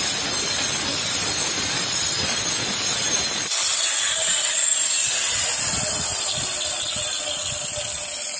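Angle grinder with a GRAFF diamond cutting disc grinding through a metal rod with a harsh, loud hiss. About three and a half seconds in the disc comes out of the cut and the grinder runs free with a steady whine.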